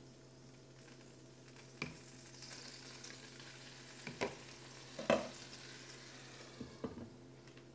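Water poured into a hot nonstick pan around soufflé pancakes, sizzling quietly as it bubbles and turns to steam. A few light knocks come through, the loudest about five seconds in, over a faint steady hum.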